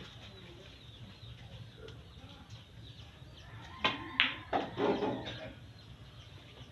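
A pool shot: the cue strikes the cue ball with a sharp click a little under four seconds in, and a second click follows about a third of a second later as ball meets ball.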